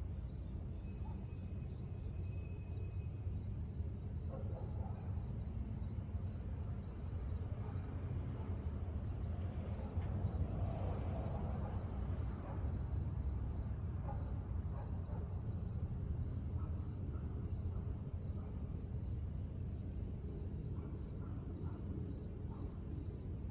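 Insects chirping in a steady, finely pulsing high-pitched trill, over a constant low rumble.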